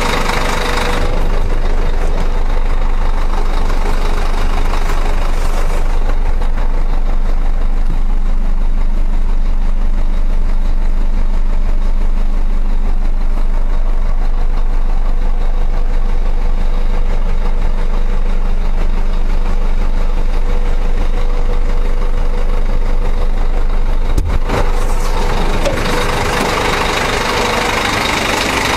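Ford Ranger pickup driving on a dirt road, heard from inside the cab: a steady low rumble of engine and tyres. Near the end there is a single knock, and then a louder, brighter hiss of road noise sets in as the road turns muddy.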